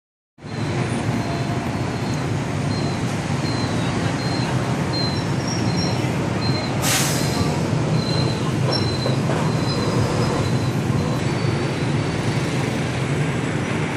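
Steady street-market background noise dominated by a low traffic hum, with short high chirping tones repeating through it and a brief hiss about seven seconds in.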